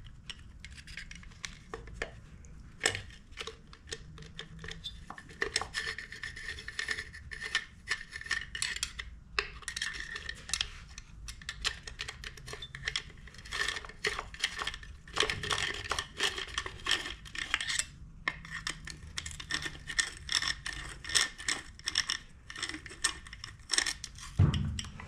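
Hand screwdriver turning screws into a chainsaw's metal muffler: irregular small metallic clicks, clinks and scrapes as the muffler is fastened back onto the Husqvarna 455 Rancher.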